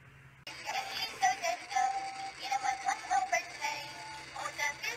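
A toy ATM coin bank's built-in speaker playing an electronic song melody, which starts again after a short pause about half a second in.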